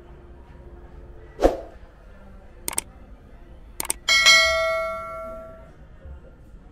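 Subscribe-button animation sound effects: a short pop about a second and a half in, two pairs of mouse clicks, then a notification bell ding that rings out for about a second and a half.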